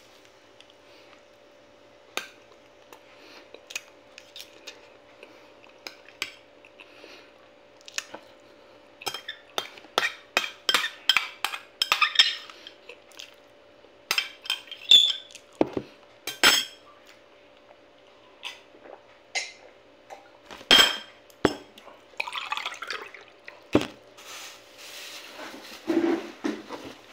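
Metal spoon clinking and scraping against a small glass bowl of buko pandan, a quick run of clinks about a third of the way in and scattered louder knocks later.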